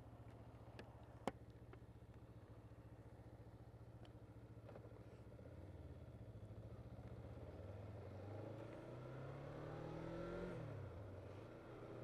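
Motorcycle engine idling steadily, then pulling away: the revs climb from about halfway through, drop once at an upshift near the end, and climb again.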